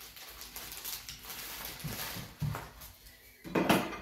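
Rummaging through a kitchen drawer, with metal utensils clinking and knocking, and one louder clatter about three and a half seconds in.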